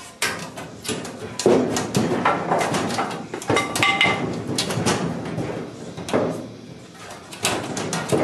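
An angled wooden 4x6 block knocking and scraping against the sheet steel of a VW bus floor as it is worked into place, a run of irregular knocks and thuds, the loudest about one and a half seconds in.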